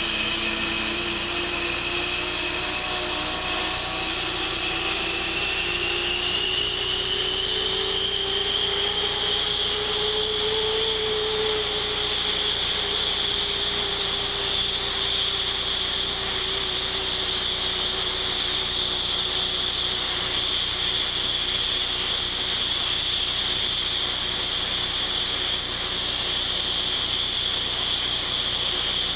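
F-15 fighter's jet engines running on the ground: a loud, steady rush with a whine that climbs in pitch over the first several seconds, then settles and holds steady at idle.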